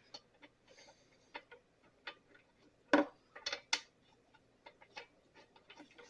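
Scattered light clicks and taps from handling the backpack blower and tools, with a sharper knock about three seconds in and a few quick taps just after; the engine is not running.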